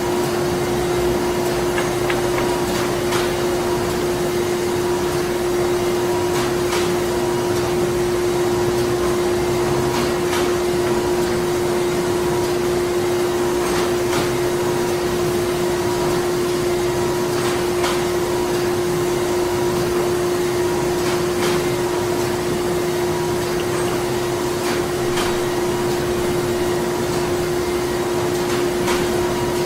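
Printing-factory machinery running steadily: a constant mechanical hum with one strong steady tone and scattered light clicks.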